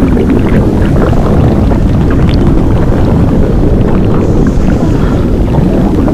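Blueberry-inflation sound effect: a steady, loud low rumble with small crackles scattered through it.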